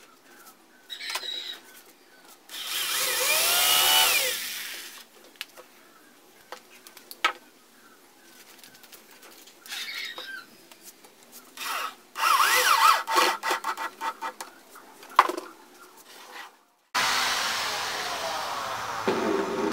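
Cordless drill driving screws into a wooden table frame in several short bursts, the motor's pitch rising and falling with the trigger. Near the end a steady rushing noise takes over.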